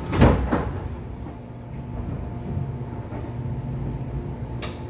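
Interior running sound of a JR 415-500 series electric motor car moving off. Two loud clunks sound near the start and another right at the end, with a steady low motor hum building between them.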